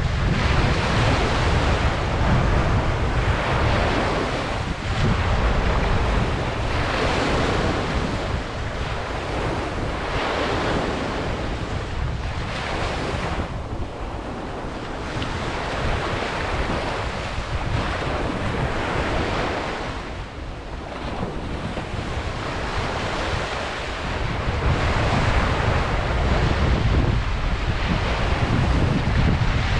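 Ocean waves breaking and washing up a beach, the surf swelling and fading every few seconds, with wind buffeting the microphone as a low rumble, strongest near the start and the end.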